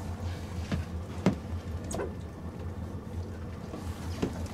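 A steady low mechanical hum with a few short knocks and clicks scattered through it.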